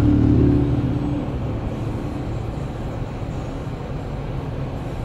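Car engine and road noise heard from inside the cabin: a low rumble with a steady engine note, louder for the first second and a half, then settling to an even drone.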